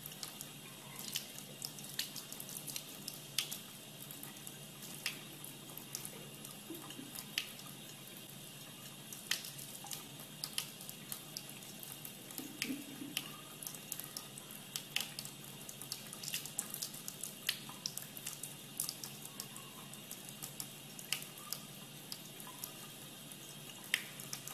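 A thin stream of water running from a sink tap into the basin, a steady trickle with frequent small, sharp, irregular ticks.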